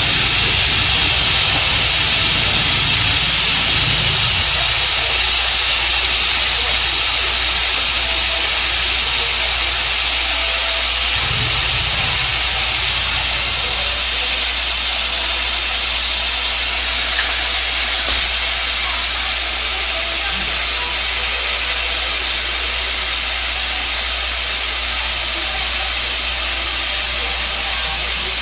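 Compressed air hissing steadily out of a paint spray gun fed by a homemade air compressor built from scrap parts, with a low steady hum beneath.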